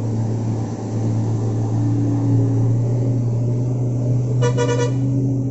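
Diesel bus engine running steadily under load, heard from inside the driver's cabin as a loud, steady drone. About four and a half seconds in, a horn sounds once, briefly.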